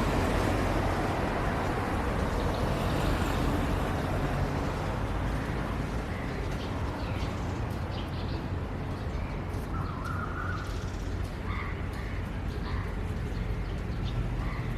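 Steady rain with a low rumble underneath. A bird calls several times in the second half.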